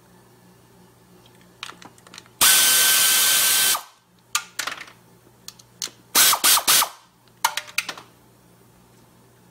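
Quarter-inch-drive air ratchet spinning bolts loose: one run of a second and a half with a hissing whine about two and a half seconds in, then several short bursts later on, with light metallic clicks of the socket and fasteners in between.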